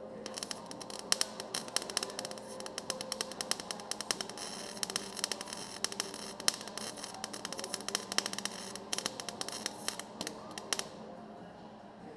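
Welding arc crackling in a dense, irregular stream of sharp pops as a steel patch is welded into rusted Jeep bodywork; it stops about 11 seconds in.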